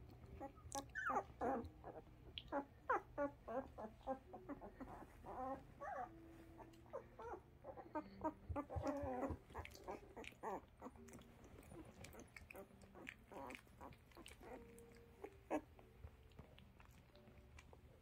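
Newborn puppies, eyes just opening, squeaking and whimpering in many short, high calls, busiest through the first half and thinning out later.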